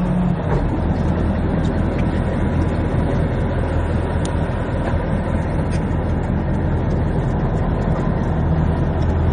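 Fishing boat's engine running steadily, a low even hum with a wash of wind and water noise over it.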